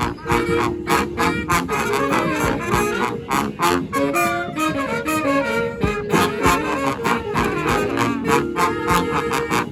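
Brass band playing live: horns over a steady, driving beat, with a busier melody line about halfway through.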